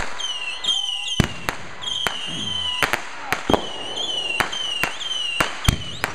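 Consumer fireworks going off in quick succession: a string of sharp bangs, several of them preceded by a high whistle that ends in the crack.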